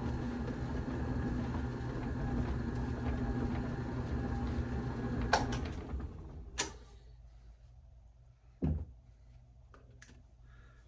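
Bowling ball spinner's electric motor running steadily, spinning a bowling ball with a cleaning towel held against it. It is switched off with a click about five and a half seconds in, followed by a few light knocks.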